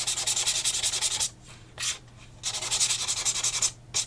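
Small sanding file rubbed quickly back and forth along the edge of a cardstock-covered cardboard box, smoothing its sides: rapid scratchy strokes in three runs broken by short pauses.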